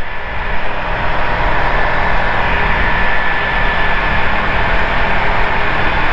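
Ikarus C42B microlight's engine and propeller running steadily at climb power, under a constant rush of air.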